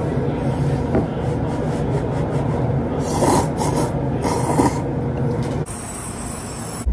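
A person slurping udon noodles, with a few loud slurps between about three and five seconds in.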